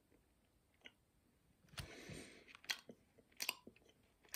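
Faint mouth sounds of a person chewing a jelly bean: a short soft rustle about two seconds in, then a few sharp wet clicks and smacks.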